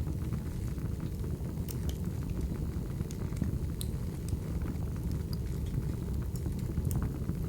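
Wood fire crackling: a steady low rumble of burning with scattered sharp pops and crackles.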